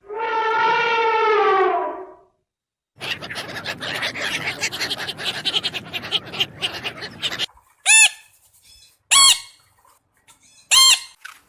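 Several different animal sounds one after another: a two-second call falling slightly in pitch, then a few seconds of rapid clicking and chattering, then three short high squeaks.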